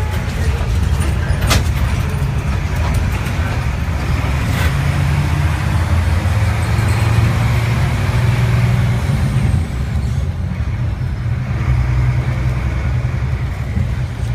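Engine and road noise of a moving vehicle: a steady, deep rumble, with a sharp knock about one and a half seconds in and a fainter one a few seconds later.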